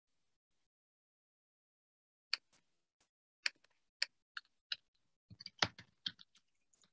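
Clicking on a computer: single sharp clicks about every half second, then a quick cluster of clicks with a duller knock near the end.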